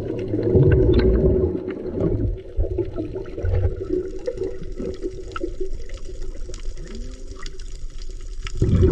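Water sloshing and gurgling around the camera of a freediving spearfisher, loudest in the first couple of seconds and quieter after.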